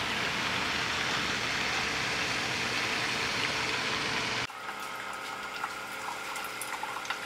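A steady, even hiss that cuts off about four and a half seconds in. Then a Keurig single-serve coffee maker brewing: coffee streams into a mug over the machine's steady pump hum, with small ticks and drips.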